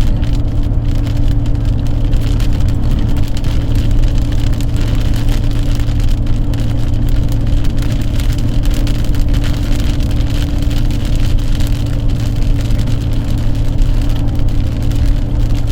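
Steady drone of a moving road vehicle: a constant low engine hum under an even rushing noise of tyres and air.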